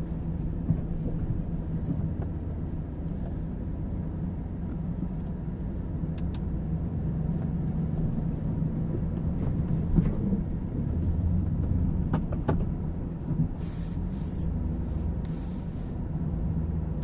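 Pickup truck with a V-plow crawling along at low revs, its engine a steady low drone, with a few sharp knocks scattered through, the strongest about two-thirds of the way in.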